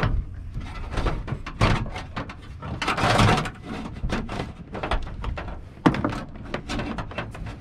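A heavy power cord being fed through the openings in a van's bare sheet-metal wall ribs, rubbing and scraping through the holes with irregular knocks against the metal, and one sharp knock about six seconds in.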